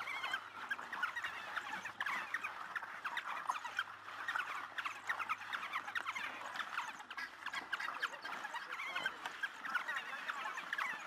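A pack of African wild dogs twittering: many overlapping short, high chirping calls.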